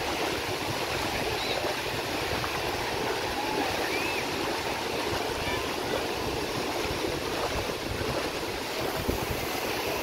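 Small waves washing onto a sandy beach in a steady rush, over a low uneven rumble.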